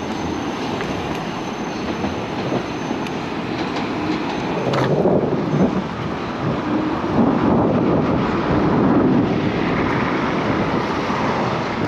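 Yume Hawk Pro electric scooter on the move: a steady rumble of road and wind noise that grows a little louder about four seconds in, with some wavering tones in the middle.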